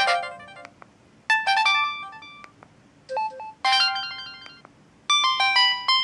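Samsung GT-E1150 flip phone previewing its SMS message alert tones one after another: short, bright chiming tunes of a few quick notes, a new one starting about every second and a half, one cut off after a moment by the next.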